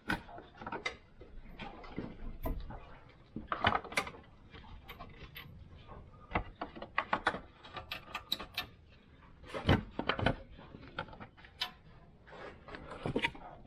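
Hand work on a truck's underside: irregular clicks, clanks and knocks of tools and metal parts being handled, with a few louder knocks about four and ten seconds in.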